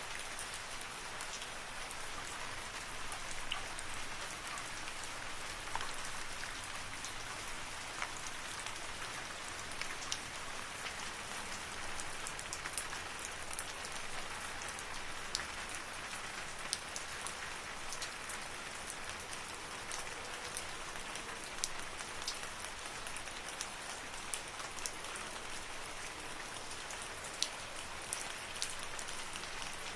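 Steady rain falling in a forest: an even hiss with scattered close drops ticking sharply on leaves and surfaces.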